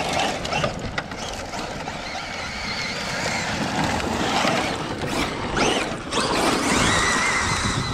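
Traxxas Maxx Slash RC short-course truck driving hard over loose dirt and gravel: its brushless electric motor whines in stretches under throttle over the hiss of the tires throwing dirt.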